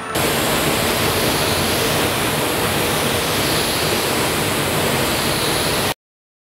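Gravity-feed spray gun spraying epoxy primer onto a car door: a steady, loud hiss of compressed air that cuts off abruptly near the end.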